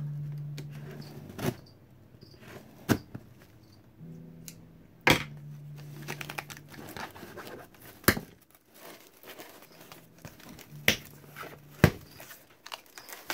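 Packing tape being peeled and ripped off a cardboard shipping box, with stretches of low buzzing as the tape pulls away and about six sharp snaps as it tears free and the flaps come loose. In between, cardboard and paper rustle and crinkle.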